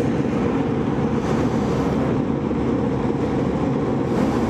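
Rooftop air-conditioning unit running: a steady mechanical drone with a constant hum.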